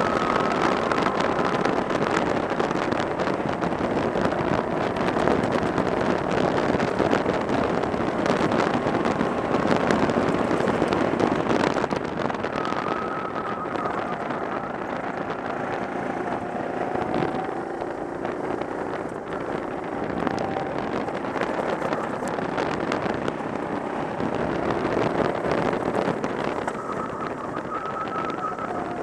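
Go-kart engine running at speed, heard from on board, its pitch rising and falling as the kart goes through the corners. Loudest for the first dozen seconds, then a little quieter.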